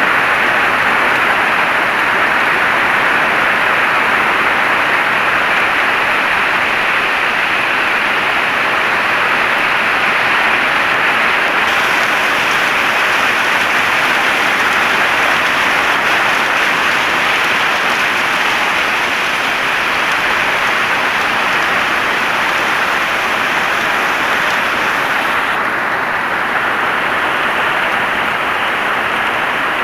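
Heavy rain falling steadily, a dense even hiss of drops on a surface.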